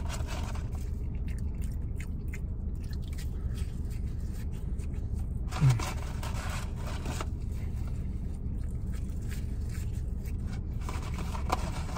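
Chewing, with the rustle and scrape of a cardboard French fry carton as fries are pulled out and eaten quickly, over a steady low hum inside the car. A short low voice sound falls in pitch about halfway through.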